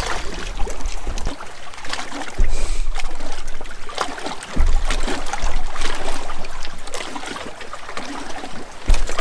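Water trickling and lapping around a fishing kayak, with small clicks and knocks and a low rumble that comes and goes.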